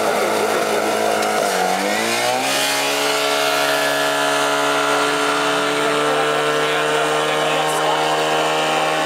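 Portable fire pump's engine running hard at high revs. About a second and a half in, its note dips briefly, then climbs and holds at a higher steady pitch.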